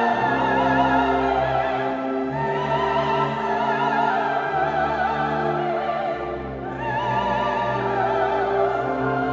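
Solo soprano singing a slow sacred line with wide vibrato over sustained chords from a symphonic wind band. The voice breaks off briefly between phrases about six seconds in, then resumes.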